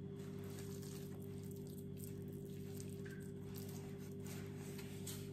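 Faint soft squishing of wet hands scooping and squeezing buckwheat cutlet mixture, with a few light clicks, over a steady low hum.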